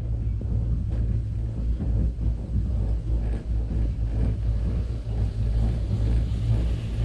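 Steady low rumble of a gondola cable car cabin travelling along its cable.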